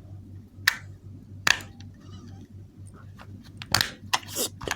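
Plastic clicks and knocks from a handheld remote control being handled as its battery cover is snapped back on. There are several sharp, separate clicks, with a cluster near the end.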